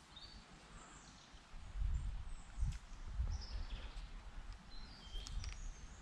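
Irregular low rumbling on the microphone, loudest from about two seconds in, with a few short, high bird chirps over it.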